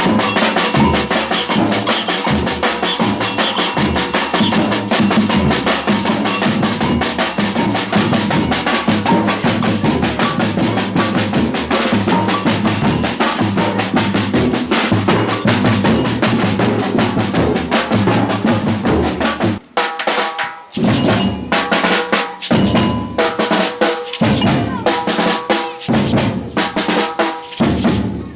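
Batucada samba percussion ensemble playing, with deep bass drums and snare drums keeping a dense, steady groove. About two-thirds of the way through, the groove breaks into a sparser pattern of separate accented hits with short gaps between them.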